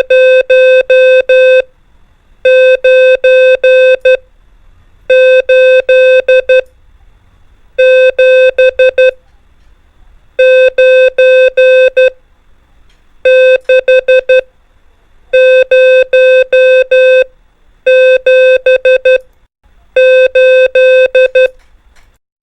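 Morse code numbers sent as a steady pitched beep: nine digits, each a group of five dots and dashes, one about every two and a half seconds.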